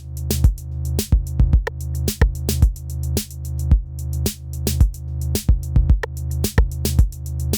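Background electronic music with a steady drum-machine beat over a sustained low bass.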